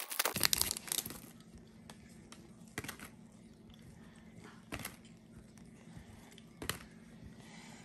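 Foil trading-card pack wrapper crinkling and tearing as it is pulled open, then a few sharp clicks about every two seconds as the glossy cards are flipped one by one.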